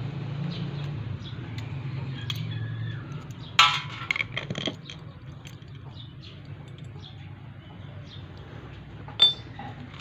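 Small metal clinks of a door lock being taken apart by hand: screws and lock parts clink against each other and drop onto a sheet-metal door panel. A cluster of sharp clinks comes about three and a half seconds in and a single one near the end, over a steady low hum.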